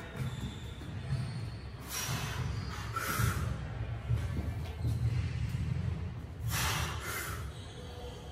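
A weightlifter breathing forcefully between reps of heavy barbell back squats with 122.5 kg: sharp rushes of breath about two seconds in, again a second later, and a longer double breath later on.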